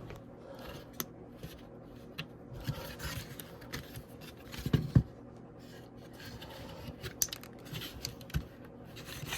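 Light clicks and scraping of the plastic parts of a VW Mk3 heater control unit being handled, as its jammed knob and gears are worked. A few louder clicks come about five seconds in.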